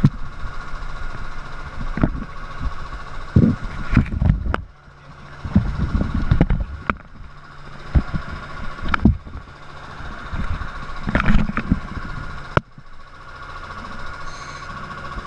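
Boat engine idling with a steady hum, under a dozen or so irregular knocks and thumps of dive gear being handled.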